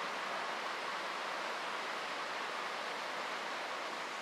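Embraer ERJ-140LR regional jet's two AE3007 turbofan engines at takeoff power as it climbs away, a steady rushing jet noise that slowly fades toward the end.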